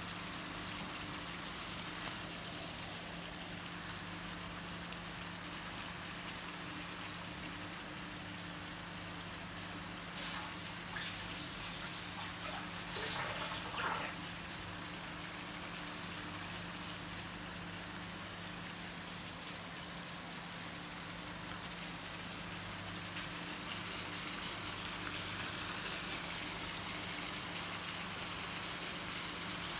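Masala-coated anchovies (netholi) frying in hot oil in a pan: a steady sizzle, with a cluster of louder crackles and pops about 13 to 14 seconds in. A steady low hum runs underneath.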